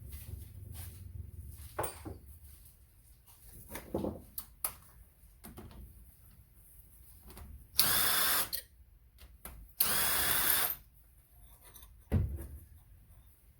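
A handheld power tool, drill-like, runs in two short bursts about two seconds apart, each under a second long and steady while it runs. Light clicks and knocks of parts being handled come before them, and a dull thump follows shortly after.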